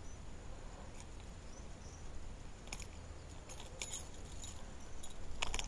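Fishing pliers and the metal hooks of a hard-bait lure giving small scattered clicks and rattles while the lure is worked out of a peacock bass's mouth. The clicks come in ones and twos, then a quick cluster near the end.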